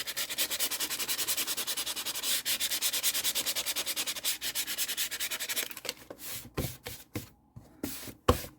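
Sandpaper rubbed by hand in rapid, even back-and-forth strokes over a glossy hardcover book cover, roughening it so that glued fabric will stick. The sanding stops a little over halfway through, and is followed by a few light knocks and handling sounds, with one sharper knock near the end.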